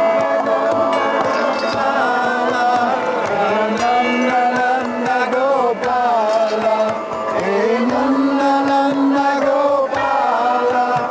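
Overtone choir singing a slow, chant-like piece: sustained notes that glide and bend in pitch, with a long held low note a little past the middle, over a regular low rhythmic pulse.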